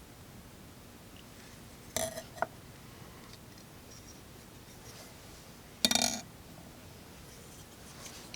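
Two short metallic clacks about four seconds apart, the second louder, as frame-lock folding pocket knives are handled. The first carries a brief ring.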